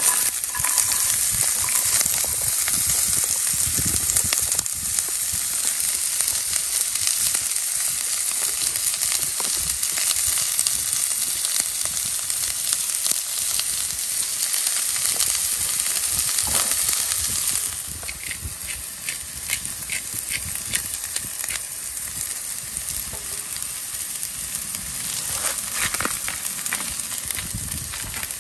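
Chopped onions and garlic sizzling in hot oil in a skillet, starting sharply as they hit the pan and settling down a little about two-thirds of the way through.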